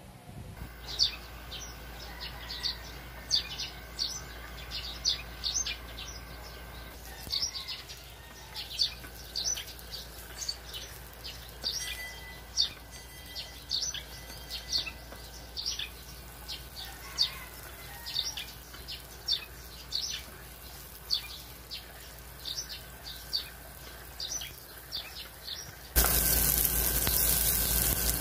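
Small birds chirping over and over in short high calls, over a low steady hum. Near the end a loud, even sizzling hiss starts suddenly, as onions and garlic fry in hot oil in the pan.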